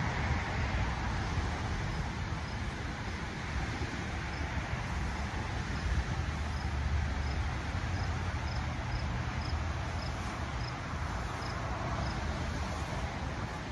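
Outdoor ambience: a steady low rumble and hiss, with a faint high chirp repeating about twice a second through most of it.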